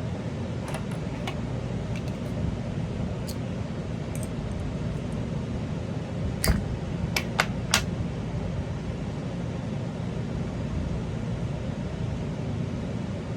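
Light clicks and taps of paintball marker bolt parts being handled while trying to pull two pieces apart, over a steady background hum. The sharpest knocks come in a quick cluster of four a little past the middle.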